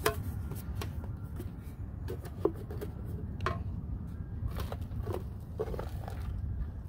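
Hands setting a small metal tin into a hole and scraping dry, loose soil back around it: scattered light scuffs and knocks, with one sharper knock about two and a half seconds in, over a steady low rumble.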